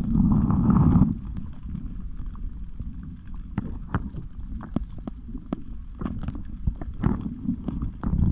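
Muffled rumble of seawater moving against a submerged camera, loudest in the first second, with scattered light clicks and knocks of handling.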